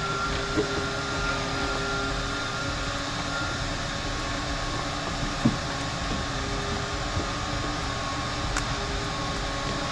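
Steady machine hum, like a fan or blower running, with a few light knocks from hand work on the car, the clearest about halfway through.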